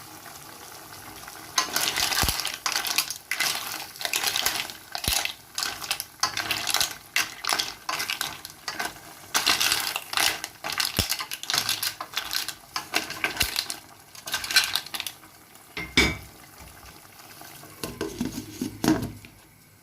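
A utensil stirring and scraping through a pan of spaghetti with clams and mussels, with dense clattering of shells and metal against the pan. This runs for most of the time, then stops, and a few separate knocks follow near the end.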